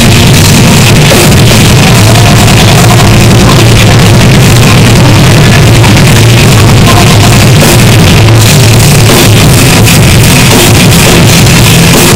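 Rock band playing live at full volume: drums and amplified instruments in a dense, unbroken wall of sound, heaviest in the bass, recorded right at its loudest limit.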